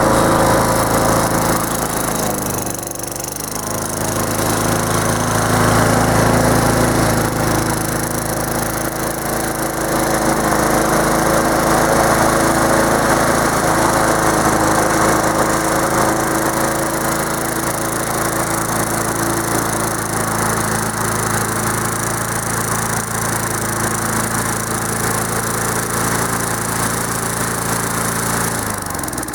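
Petrol lawn mower engine running steadily, dipping briefly about three seconds in; near the end its pitch drops as it slows.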